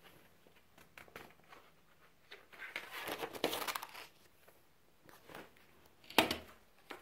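Paper pages of a spiral-bound sketchbook rustling and crinkling as they are turned, with scattered small ticks, then a sharp knock near the end.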